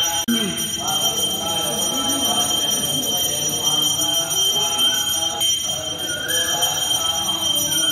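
Voices of people in a temple hall over a steady high-pitched ringing tone.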